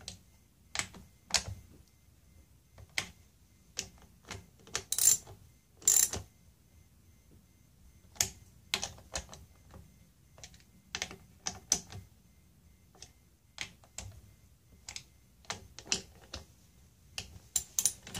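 Hand tools clicking and clinking irregularly as the throttle body's small T10 Torx screws are run down into the aluminium intake manifold: a ratchet clicking in short bursts, with a couple of louder metal clinks about five and six seconds in.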